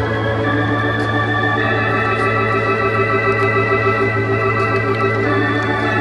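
Organ music: slow, held chords that shift a few times over a steady low bass note.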